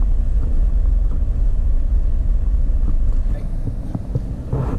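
Road noise heard from inside a moving car or truck: the low, steady rumble of engine and tyres on a rough dirt track, with a few light knocks. It drops a little and changes character about three and a half seconds in.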